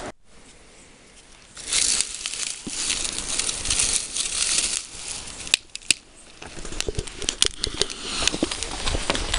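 Dry grass rustling and crackling as a hand sets a P2000 firecracker down in it, with a few sharp clicks around the middle. Near the end the lit fuse sizzles and sputters in the grass.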